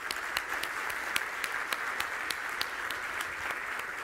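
Audience applauding, a dense patter of many hands with a few single claps standing out sharply.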